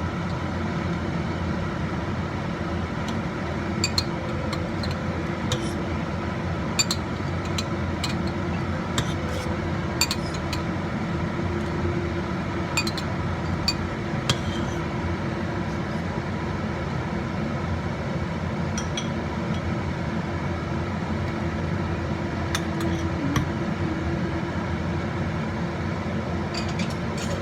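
Scattered light, sharp clinks of kitchenware at irregular intervals over a steady rushing hum.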